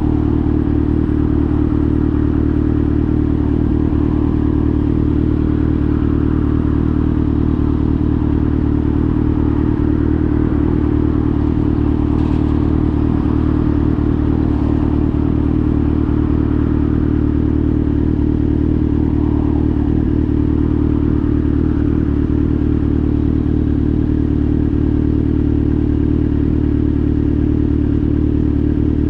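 Kawasaki Z900's inline-four engine idling steadily through an SC-Project GP1 exhaust, with no revving.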